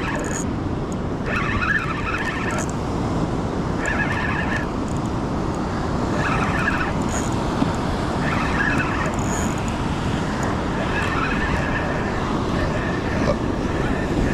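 A spinning reel wound in short spells while a hooked fish is brought in, each spell a brief whirr from the reel, over the steady rumble of surf and wind on the microphone.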